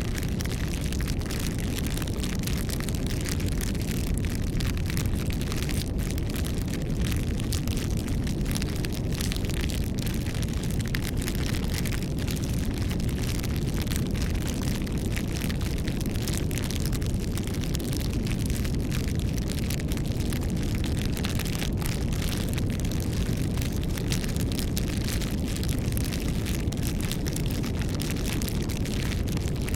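Campfire burning: a steady low rumble of flames with frequent small crackles and pops of burning wood.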